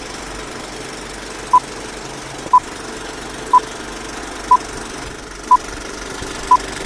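Six short electronic beeps, all on one pitch and about a second apart, over steady background noise, like the time-signal pips that open a news bulletin.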